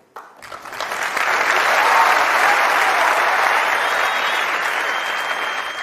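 Large auditorium audience applauding: the clapping starts just after the beginning, swells over about a second, and then holds, easing slightly toward the end.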